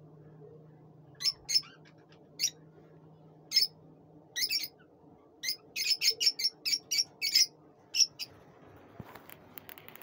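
Lutino lovebirds calling with short, sharp, high-pitched chirps: a few scattered calls at first, then a quick run of about three a second from around the middle until near the end.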